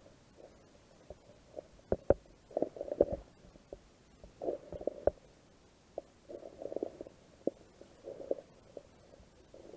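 Muffled water sloshing and gurgling in surges about every two seconds, with a few sharp knocks between them, as a kayak is paddled.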